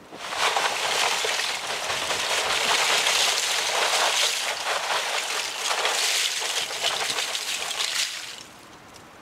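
Dry brown compost material being dumped and spread onto a compost pile: a continuous crackling rustle that lasts about eight seconds and stops near the end.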